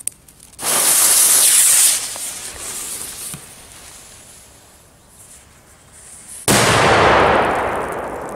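Cobra 7 firecracker: the lit fuse fizzes loudly for about a second, and about six seconds in the firecracker goes off with one loud bang that dies away over about two seconds.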